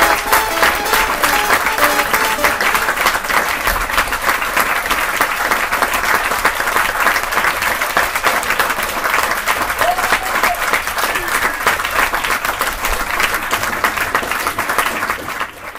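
Steady applause from a crowd, with a few music notes under it near the start; it cuts off at the very end.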